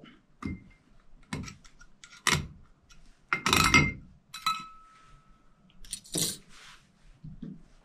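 Steel transmission parts clicking and clinking as a snap ring is picked out of a planetary output drum and the internal ring gear is lifted free. One clink about halfway through leaves a short ringing note.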